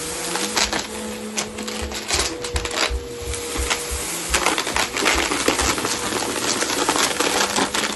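Bissell Helix upright vacuum cleaner running with a steady motor hum, with dense rattling and clicking as spilled dry lentils and debris are sucked up through it.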